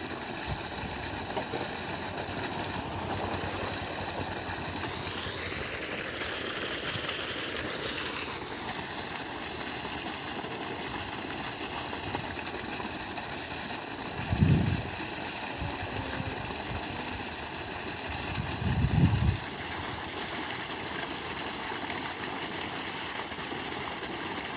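Water gushing from the discharge pipe of a surface pump driven by a 3 HP permanent-magnet DC motor, with the steady hum of the motor and pump running. The pitch rises and falls briefly about five seconds in. Two short low thumps come past the middle, about four seconds apart.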